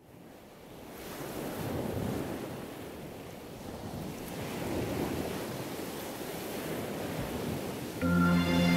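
Ocean waves washing in, fading up from silence and rising and falling in slow surges. Music comes in suddenly near the end, louder than the waves.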